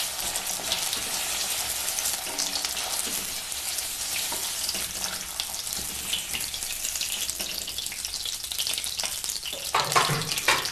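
Hot oil sizzling and crackling in a steel kadhai as the last lightly fried paneer cubes are lifted out, leaving the oil bubbling on its own. A brief louder knock near the end.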